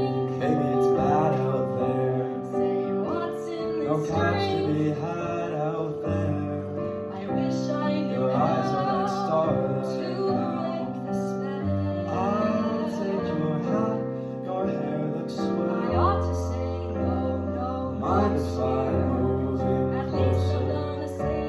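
A female and a male voice singing a Christmas duet over piano accompaniment, with vibrato on held notes.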